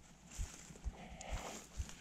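Footsteps of a person walking at a steady pace, each step a low thud about twice a second through a body-worn GoPro, with crunching of snow and dry grass underfoot.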